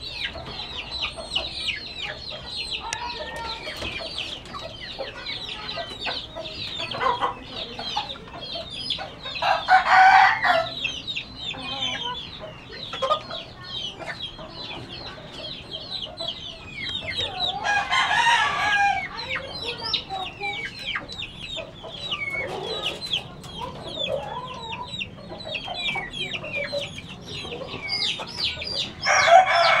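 Caged chickens calling: a constant chatter of short high peeps and clucks, with a louder cockerel crow three times, about a third of the way in, past the middle, and at the very end.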